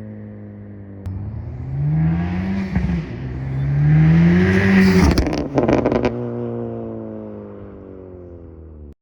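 2024 Acura Integra Type S's turbocharged 2.0-litre four-cylinder idling through an MBRP Armor Pro exhaust, blipped twice with the pitch rising each time. As the revs fall after the second blip there is a short burst of crackling, then it settles back to idle.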